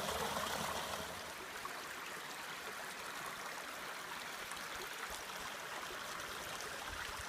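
Ramsey Creek running: a steady rushing of flowing water, a little louder in the first second.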